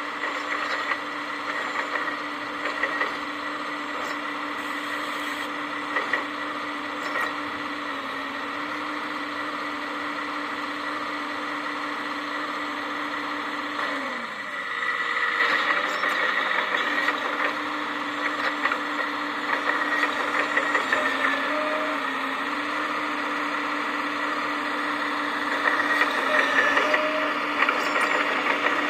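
Electric hydraulic pump of a 1/14-scale RC Volvo excavator whining steadily, its pitch sagging briefly a few times as the hydraulics take load, with gravel scraping and clattering against the bucket. The whine cuts out briefly about halfway, then comes back louder.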